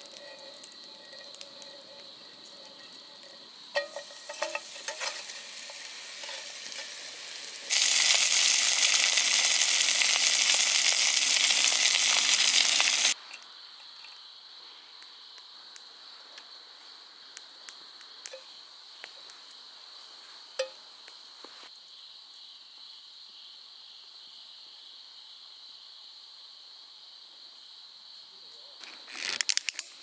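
Food sizzling loudly in a hot pan for about five seconds; the sizzle starts and stops abruptly. Before and after it, crickets chirp steadily, with a few light clicks of cookware.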